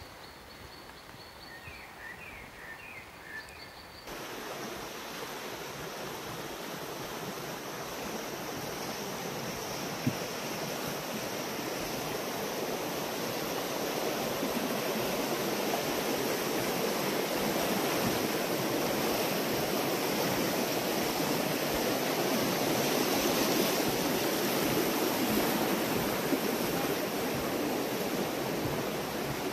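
A river in spring flood, rushing steadily. The first four seconds are quieter, with a few short bird chirps. Then the rushing water sets in abruptly and grows louder over the next ten seconds or so before holding steady.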